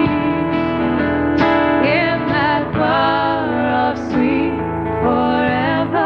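A live band playing a slow gospel hymn with electric guitar, and from about two seconds in a woman's voice singing held, wavering notes.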